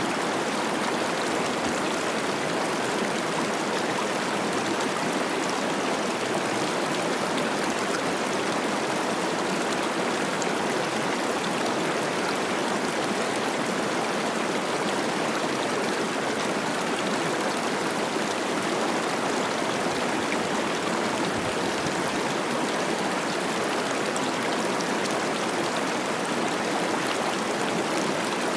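Cache la Poudre River running high with spring snowmelt: a steady, even rush of fast-flowing water over rocks.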